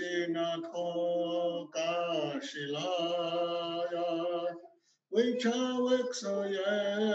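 A man singing a prayer song alone, unaccompanied, in long held, wavering notes, with a brief breath about five seconds in.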